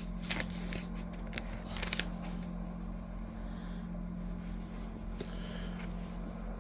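Steady low hum, with a few light clicks and rustles in the first two seconds.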